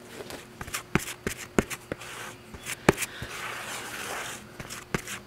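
Scattered clicks and knocks, with a soft scraping stretch in the middle: a plastic body-filler spreader working on a mixing board, mixing glazing putty with its hardener.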